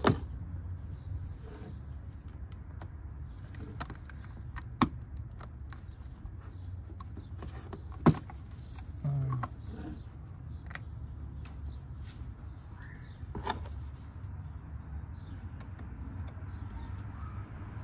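Scattered sharp clicks and small metallic rattles of a wire connection being fitted at the car battery's ground terminal, the loudest about 5 and 8 seconds in, over a steady low hum.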